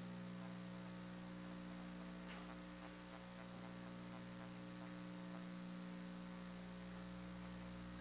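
Steady electrical hum with faint hiss from the room or recording setup; no other sound stands out.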